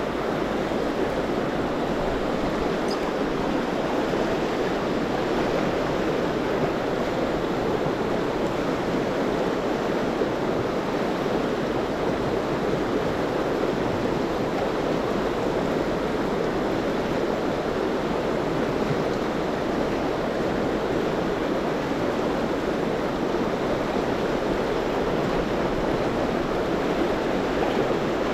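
Steady rush of fast water in a river riffle, an even hiss and roar that does not change.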